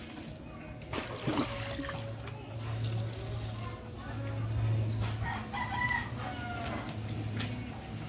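A rooster crowing, a pitched call about five seconds in, over a steady low hum.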